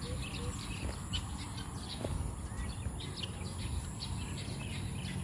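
Many small birds chirping and calling in short, scattered notes over a low steady rumble. A short repeated call, about three notes a second, stops about half a second in.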